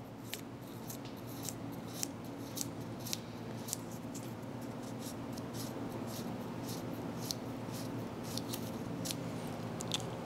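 Fine 2000-grit abrasive paper scuffing the metal arm of a fuel sending unit in short, light strokes: a run of brief, sharp, scratchy rasps, about two a second and irregular, cleaning the arm's contact surface.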